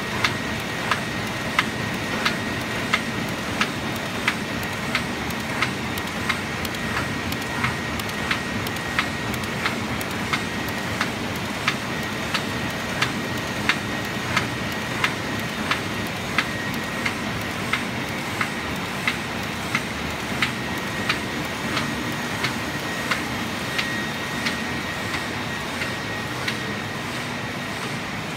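Roland Favorit sheet-fed offset printing press running at a steady speed: a constant machine noise with a sharp click about every two-thirds of a second and a faint steady whine.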